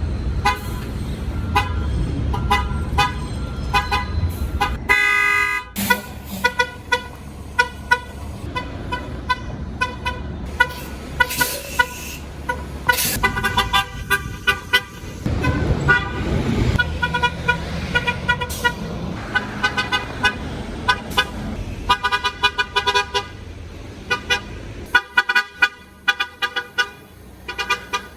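MTA city bus horns tooting over and over, in short single beeps and quick strings of beeps, over the rumble of the bus engines and street traffic.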